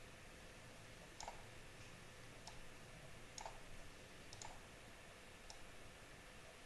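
Faint computer mouse clicks, about half a dozen spaced roughly a second apart, over quiet room tone.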